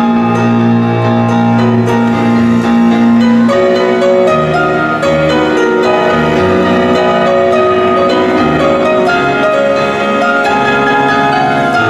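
Piano playing slowly with long held chords; the deep held chord gives way about three and a half seconds in to a moving line of shorter notes.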